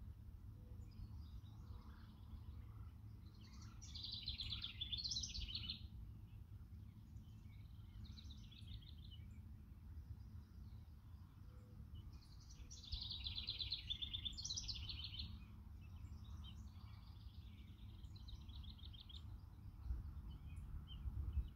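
A songbird singing in rapid trilled phrases, loudest about four seconds in and again about thirteen seconds in, with quieter phrases between, over a steady low rumble.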